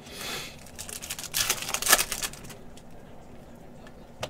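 Plastic trading-card pack wrapper crinkling and being torn open: a short rustle, then a louder crackling tear lasting about a second.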